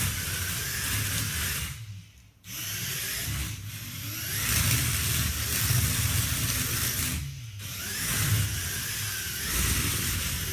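Electric motors and plastic gearing of a remote-controlled Lego Technic car whirring as it drives, with two short pauses where it stops and starts again.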